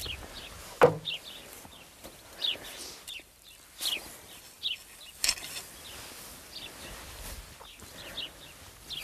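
Small birds chirping in short, repeated downward notes over steady outdoor background noise. A few sharp knocks or clicks break in, the loudest about a second in.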